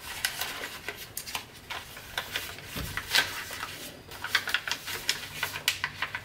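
Tant origami paper crackling and rustling in quick, irregular clicks as fingers fold and press down the pleats of a tessellation twist.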